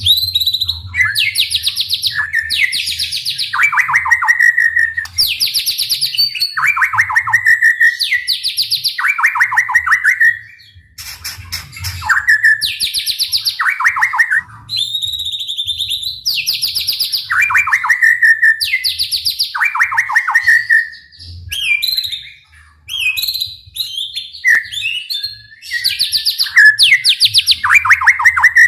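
White-rumped shama (murai batu) singing loudly in its rapid-fire 'tembakan' phrases: fast rattling runs of notes, each starting high and dropping lower, one after another about once a second. There is a short lull about 11 seconds in, and a stretch of looser, varied notes in the later part.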